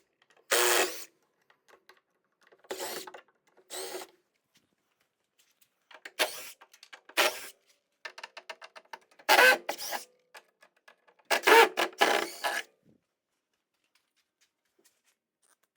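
Cordless power drill run in about seven short bursts, unfastening the shipping brackets that hold the vending machine's legs to the pallet.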